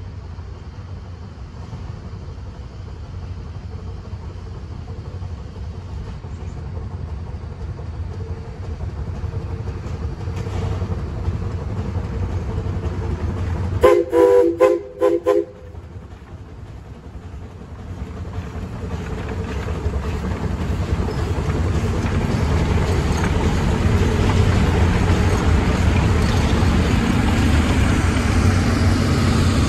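Steam locomotive hauling a passenger train approaches and passes close by, its rumble growing steadily louder. About halfway through, the steam whistle gives a few short blasts, and near the end the wheels of the passing coaches rumble on the rails.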